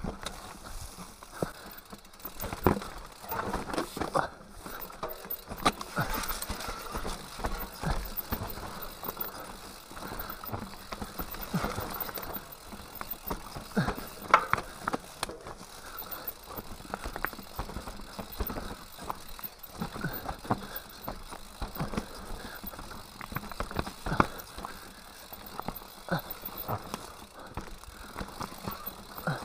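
Mountain bike riding down a rocky singletrack: the bike rattles and knocks over stones and roots throughout, with the hardest knocks about three, fourteen and twenty-four seconds in.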